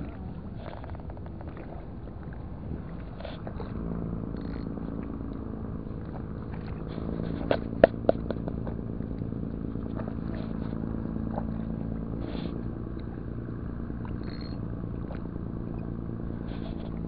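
An engine running steadily with a low hum, growing louder about four seconds in. A few sharp clicks come just before eight seconds in.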